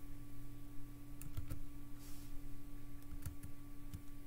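A handful of short computer keyboard clicks, grouped around a second and a half in and again about three and a half seconds in, over a steady low electrical hum.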